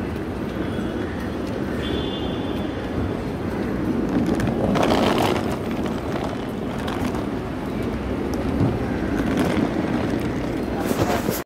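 Airport luggage trolley rolling and rattling over paved ground, against a steady background of traffic.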